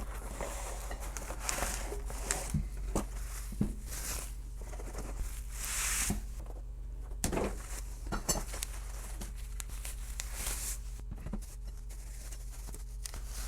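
Unboxing sounds: packaging rustling in hissy swells, with plastic and metal parts clicking and knocking now and then as they are handled, over a steady low hum.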